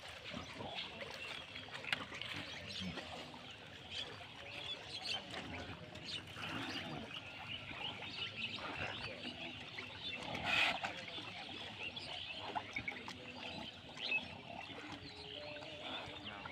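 Ambient sound of a large herd of black pigs in a muddy pen: scattered animal calls over a dense, chirpy background, with one louder sound about ten seconds in.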